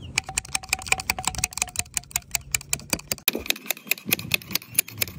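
Wrench tapping rapidly on a copper slip coupling to drive it down the pipe: a fast run of light metallic taps, about eight a second, with a faint ring.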